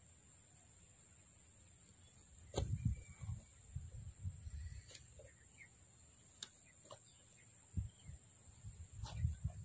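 A steady, high-pitched insect drone, with scattered low thumps, rustles and a few clicks from about two and a half seconds in as a freshly landed snakehead is grabbed in the wet grass.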